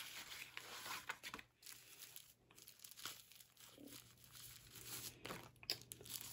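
Faint crinkling and rustling of product packaging being handled and torn open by hand, in short, irregular crackles.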